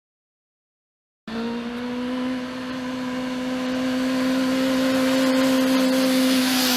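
Honda CB400 inline-four motorcycle engine with no exhaust fitted, running at high, steady revs and growing louder. It starts abruptly about a second in, after dead silence, and creeps slightly up in pitch.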